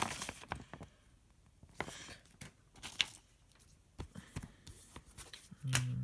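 Paper and cardboard packaging being handled: a folded instruction leaflet rustling and a white cardboard box tray being picked up, with scattered light taps and clicks separated by quiet gaps.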